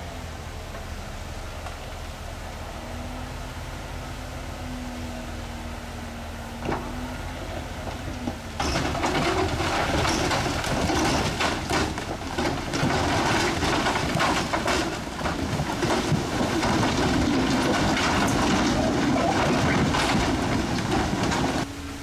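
Heavy diesel machinery running steadily, then a little over a third of the way in a loud, continuous clatter and grinding of rock and soil being shoved and tumbling, full of sharp knocks, which stops suddenly near the end.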